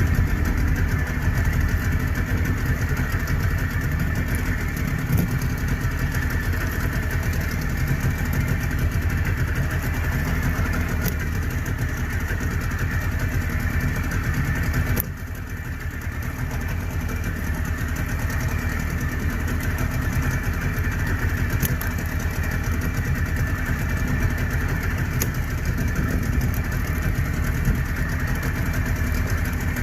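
Fishing boat's engine running steadily at low revs, with a sudden short dip in level about halfway through.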